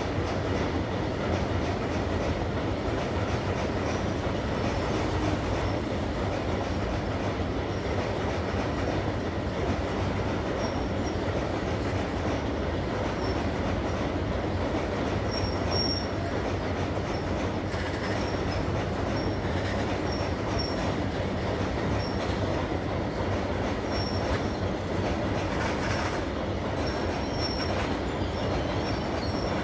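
Long freight train crossing a steel truss bridge: a steady rumble of wagon wheels on the rails that does not change. Short high squeaks come and go over it.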